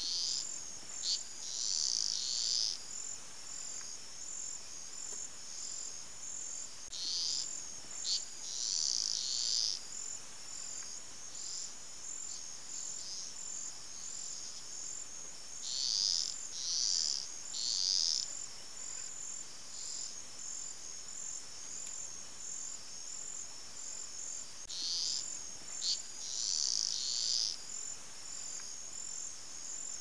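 Steady high-pitched chorus of calling insects, with louder high calls in clusters of two or three about every eight seconds.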